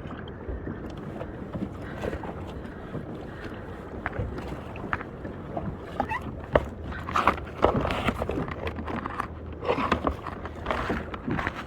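Irregular clicks, knocks and light rattles of fishing gear being handled aboard a plastic fishing kayak, busier and louder in the second half, over a steady hiss of wind and water.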